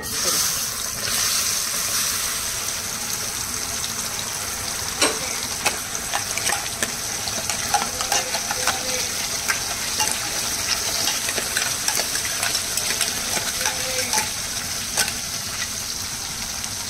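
Green masala paste sizzling as it hits hot oil in a kadhai and keeps frying, a steady hiss that starts suddenly. Many short sharp clicks and pops run through it.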